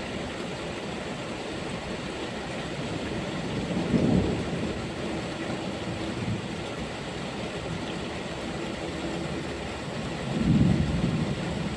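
Steady rainfall with two low rolls of thunder: a short one about four seconds in and a longer one near the end.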